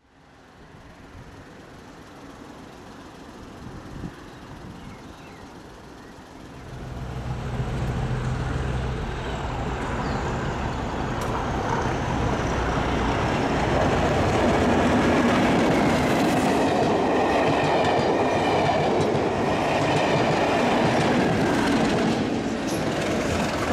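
A pair of British Rail Class 37 diesel locomotives with English Electric engines approaching on a track inspection train. The low engine note comes in about six seconds in and grows steadily louder, and wheel-on-rail noise builds to a steady loud level from about halfway through.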